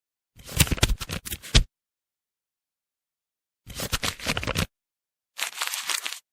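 Three short, separate sound-effect samples played one after another with dead silence between them: scratchy, crackling noise, the first with sharp clicks and low thumps.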